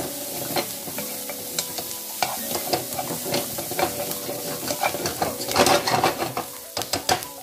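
A spatula stirring and scraping chickpea scramble and onions around a sizzling nonstick frying pan. A flurry of louder scrapes comes near the end.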